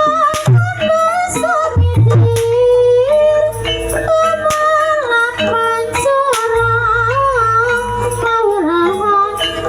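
Ebeg gamelan music with a woman singing a wavering, ornamented melody over steady low notes, cut through by a few sharp percussive strokes.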